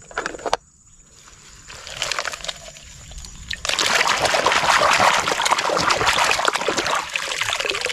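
Water splashing and sloshing as a hand swishes a small plastic toy back and forth in shallow stream water to rinse it. The splashing is soft at first and becomes loud and continuous from about three and a half seconds in.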